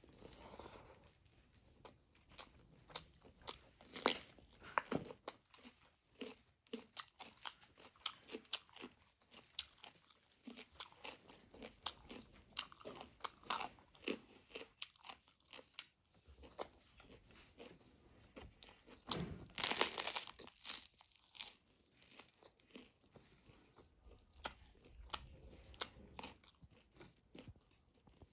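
Close-miked eating: a person chewing and biting with crisp crunching, many short crackles, and a louder run of crunches about twenty seconds in.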